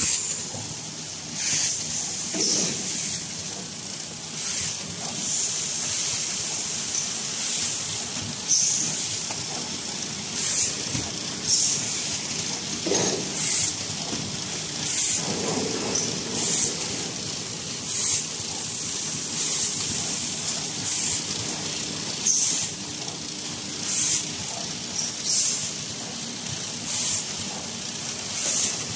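XY-AI-398F automatic multi-roll toilet paper film bag packing machine running: a steady mechanical hum with a thin high whine, broken roughly once every second or so by short sharp hisses of air.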